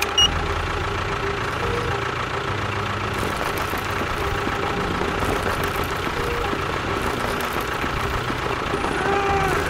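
A small motor running steadily, with a short high beep right at the start.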